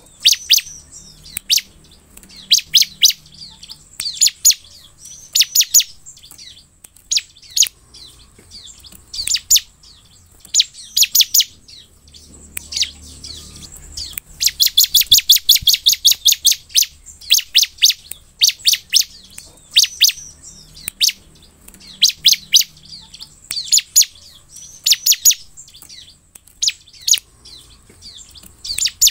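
Bar-winged prinia (ciblek) calling: clusters of sharp, high chirps, with a fast, loud run of rapid chirps about halfway through.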